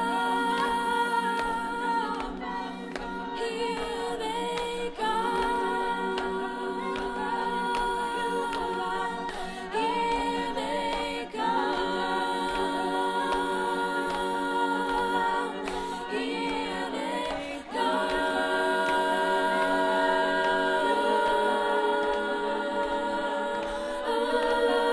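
Collegiate a cappella group singing held chords, with a soloist's voice over the backing voices and no instruments. The chords shift every few seconds, with short breaks about five, eleven and eighteen seconds in.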